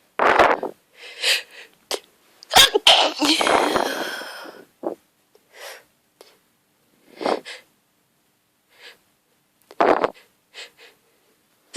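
A woman sneezing over and over in a hay-fever sneezing fit set off by grass pollen. There is a loud sneeze right at the start and the biggest, longest one about two and a half seconds in, fading out slowly. Shorter, smaller bursts are spread through the rest.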